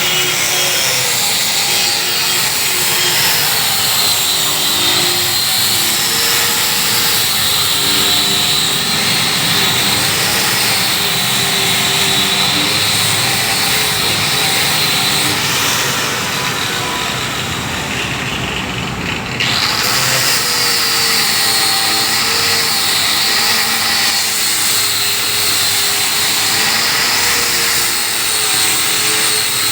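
Woodworking power tool running continuously through wood, its motor pitch dipping and rising as the load changes.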